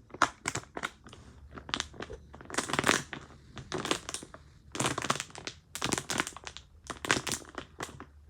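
Thin plastic water bottle being squeezed and handled, crackling and crunching in irregular bursts.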